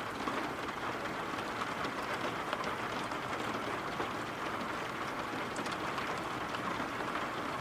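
Steady rain falling: an even hiss with scattered light drop taps.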